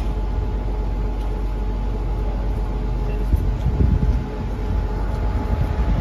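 Diesel engine of a Cat M322C wheeled excavator running steadily close to the microphone: a low, even rumble with a steady tone above it.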